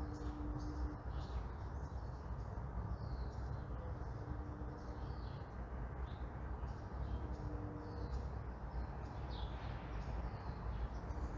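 Outdoor morning ambience: small birds chirping and twittering over a steady low rumble of distant traffic. A short low note recurs about every three to four seconds.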